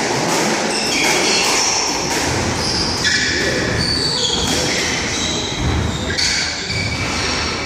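Squash rally: the ball is struck by rackets and smacks off the court walls in irregular sharp cracks, while rubber-soled shoes squeak in short high chirps on the wooden floor.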